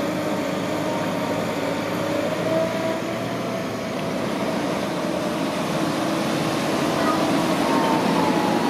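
Liebherr wheeled material handler running steadily: diesel engine with a hydraulic whine that drifts in pitch as the boom and grab work, rising near the end.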